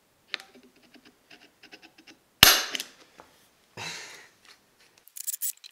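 An automatic (spring-loaded) center punch firing once with a sharp snap against the aluminium hub-motor housing about two and a half seconds in, ringing briefly, after a few light clicks as the punch tip is placed. A softer rustle follows, and a run of quick clicks comes near the end.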